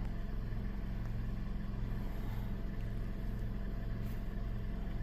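Toyota car engine idling steadily, warmed to normal operating temperature, with the automatic transmission held in drive while the car stands still. The gears are being cycled to circulate transmission fluid after a CV axle seal replacement.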